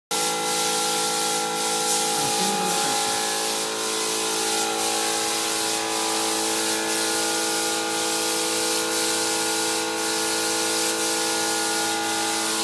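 Spray gun hissing steadily as a finish is sprayed onto a wooden door, over a steady motor hum.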